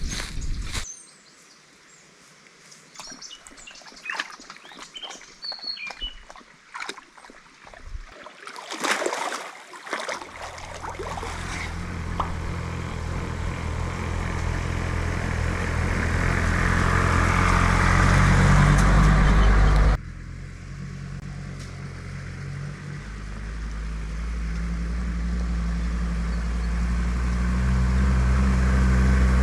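Birds chirping, with scattered clicks and rustles. About ten seconds in, a vehicle engine starts to be heard: the Mercedes G 250 GD's diesel, growing steadily louder. About two-thirds of the way through it drops suddenly, then builds up again.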